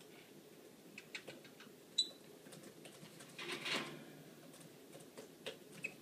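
Cockatiel moving about its cage: faint scattered clicks and scratches, a short rustle in the middle, and two brief high chirps, one about two seconds in and one near the end.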